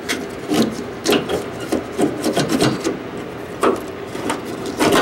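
Hands rummaging through and pulling a wire out of an engine-bay wiring harness: irregular rubbing and scraping strokes, about a dozen in all.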